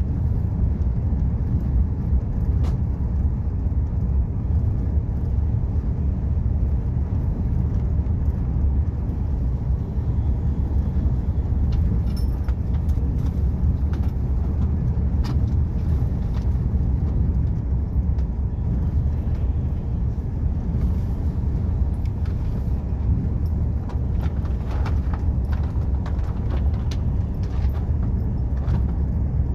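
Steady low rumble of a moving vehicle, with scattered faint clicks.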